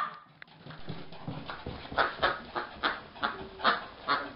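Shih Tzu barking in quick, short yaps, about two a second, during rough play.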